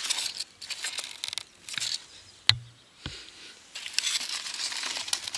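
Rustling and handling noise as the crashed Styrofoam RC plane is picked over in the grass, with one sharp click about two and a half seconds in.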